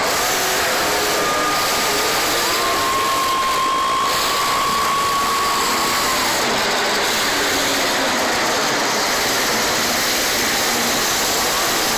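Monster truck engines running, heard from the stadium stands as a loud, steady wash of noise. A single steady high note is held for a few seconds near the middle.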